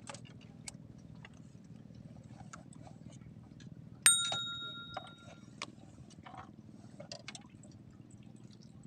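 A single bright metallic ding, like a small bell struck once, about four seconds in, ringing on for a second or so as it fades. Under it there is a low steady hum and scattered small clicks and water sounds.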